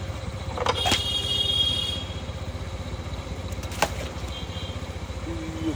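A small engine idling steadily with an even low throb, broken by a sharp click about a second in and another about four seconds in.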